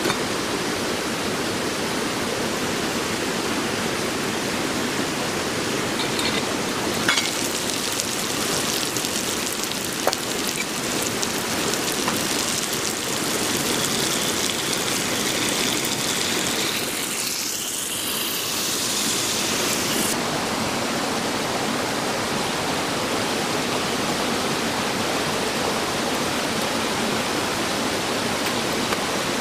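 Eggs and diced ham sizzling in a cast-iron skillet over campfire embers, a steady hiss that turns brighter from about seven seconds in until about twenty seconds in, over a constant rushing background. A few light clicks come near the start of the brighter stretch.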